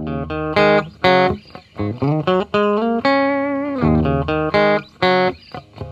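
Guitar music: a melody of separate plucked notes, some of them bending in pitch.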